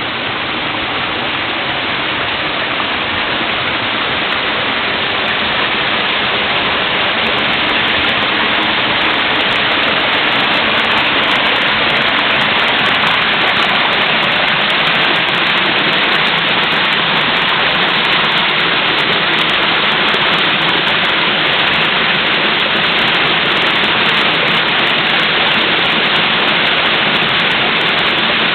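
Waterfall: a steady, loud rush of falling water, growing somewhat louder over the first several seconds and then holding level.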